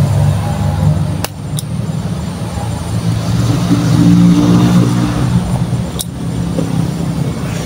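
A motor vehicle engine running close by, its pitch rising a little in the middle, with sharp clicks of a hand stapler stapling a plastic banner sleeve: two about a second in and one near six seconds.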